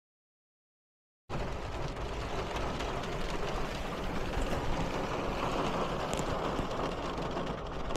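Rain falling on a car's roof and windows, heard from inside the cabin as a steady, even hiss with a low rumble. It begins abruptly about a second in, after silence.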